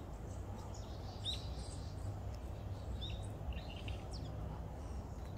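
A few faint, short, high bird chirps scattered through, over a steady low background rumble.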